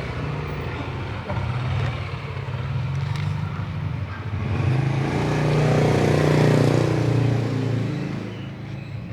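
A motor's low, steady drone that swells louder about five seconds in and eases off near the end.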